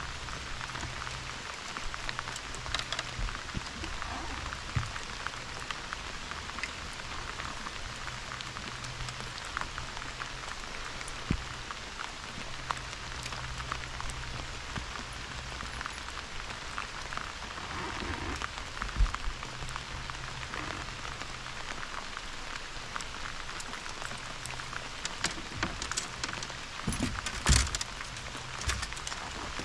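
Steady rain falling on the lake surface and the boat, with many small drop hits. A few louder knocks come near the end.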